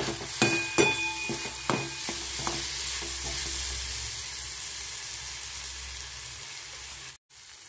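Metal spatula stirring and scraping soaked moong dal around a hot kadhai, with a few knocks and clinks of metal on the pan in the first two seconds, over the steady sizzle of the dal frying in spiced oil. The sound cuts off abruptly about seven seconds in.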